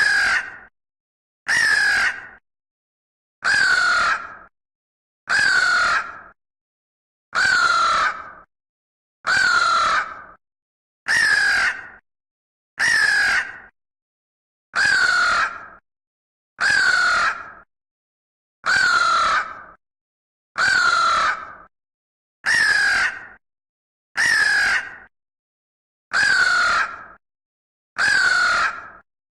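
A crow cawing: one harsh caw, falling slightly in pitch, repeated about every two seconds, sixteen times, with dead silence between the calls.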